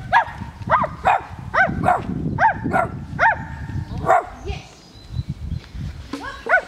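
People barking like dogs: a quick run of about ten short, yelping barks, each rising then falling in pitch, then a pause and two more barks near the end.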